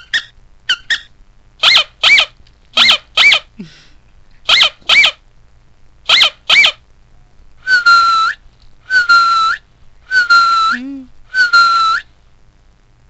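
Recorded dog sounds played from a dog-sounds phone app: a run of short, high yips in pairs, then four longer high whines, each rising at its end.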